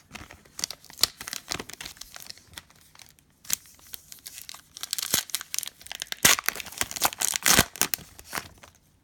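Plastic trading-card pack wrappers being torn open and crinkled by hand, with irregular sharp crackles that come thickest around the middle to late part.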